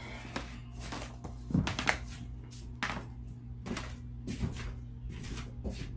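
Irregular light knocks and clicks, about two a second, of things being handled in a small room, over a steady low hum.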